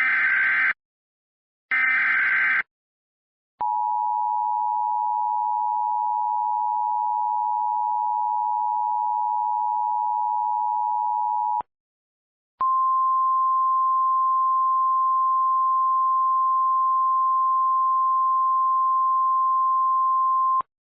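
Emergency Alert System alert sequence: two short, screechy SAME digital header bursts about a second each, then the steady two-tone EAS attention signal for about eight seconds, a second's pause, and a steady single-pitch alert tone for about eight seconds more.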